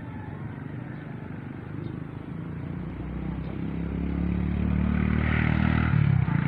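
A motor vehicle's engine running close by, growing steadily louder from about three seconds in as it draws near.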